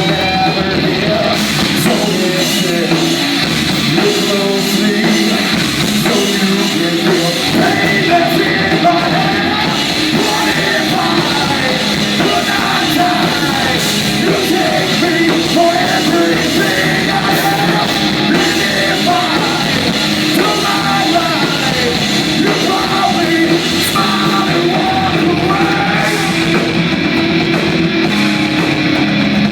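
Loud heavy rock music with a full band playing continuously.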